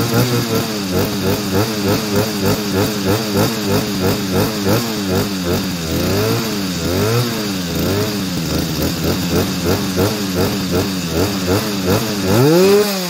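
New Stihl MS210 chainsaw's 35cc two-stroke engine being warmed up with gentle throttle blips, about two a second, with a few slower, wider revs and one higher rev near the end.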